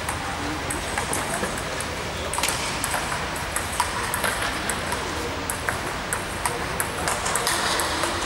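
Table tennis rally: a celluloid-type ball clicking sharply on bats and the table in an irregular run of quick ticks.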